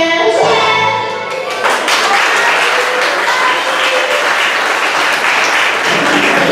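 Music ends on a held chord, then the audience breaks into applause about a second and a half in, steady clapping that carries on.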